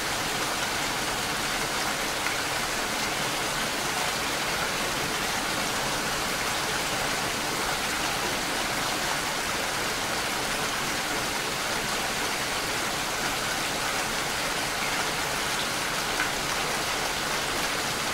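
Heavy cyclone rain falling on a car's windshield and roof, heard from inside the car as a steady, dense hiss.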